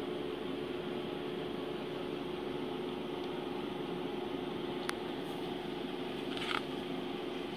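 A steady machine-like hum with one constant tone throughout, such as a fan or other appliance running. A short tick comes about five seconds in, and a brief rustle of a glossy yearbook page being handled comes about six and a half seconds in.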